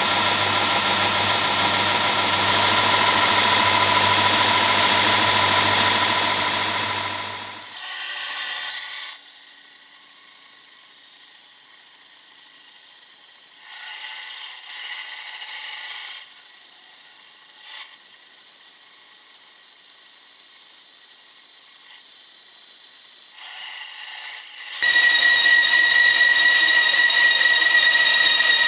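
Belt grinder running with a spring-steel sword blank pressed to the belt, a steady grinding noise for about the first seven seconds. Then a band saw cutting through a solid brass rod, a steady high whine that grows louder again near the end.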